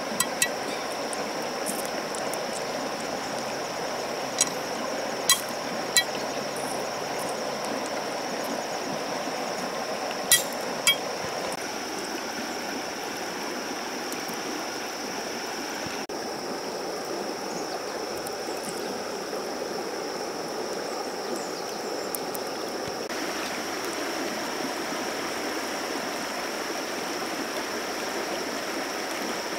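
A shallow river running steadily over a stony bed, a continuous rush of water. A handful of sharp knocks of a metal blade on river stone come in the first eleven seconds or so: two at the start, then several more between about four and eleven seconds in.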